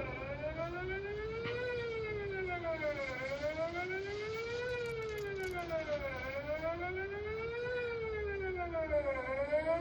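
Electronic outdoor tornado warning siren sounding a steady wail during a test: a stacked tone that glides evenly up and down in pitch, about three full rise-and-fall cycles, each about three seconds long.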